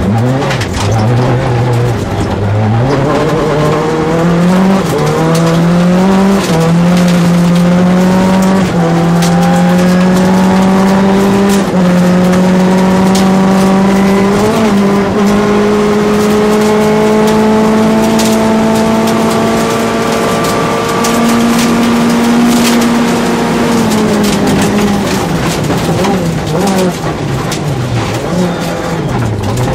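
Rally car engine heard from inside the cabin, pulling hard on a gravel stage. The revs climb through the gears over the first dozen seconds, hold high and steady along a straight, then fall away near the end as the car slows for a bend. Under it, gravel hisses under the tyres and stones click against the car.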